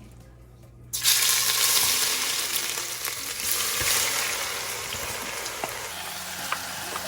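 Finely chopped onions hitting a hot pan: a sudden loud sizzle about a second in that slowly eases off, with a few light clicks of stirring near the end.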